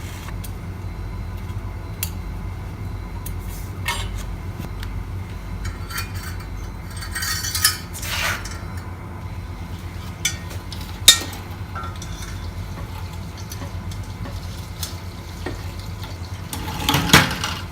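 Steel exhaust manifold parts and their clips and brackets being handled: scattered metallic clicks and scrapes, with one sharp click about eleven seconds in and a longer scrape near the end. A steady low hum runs underneath.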